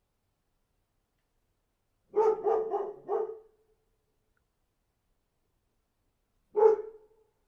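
Dog barking: a quick run of four barks about two seconds in, then a single bark near the end, with silence between.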